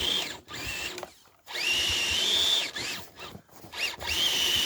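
An RC crawler truck's electric motor and gears whine in bursts as the throttle is blipped and released, with short quiet gaps in between. Each burst rises quickly in pitch and then holds steady. The motor is straining to climb a snow hill.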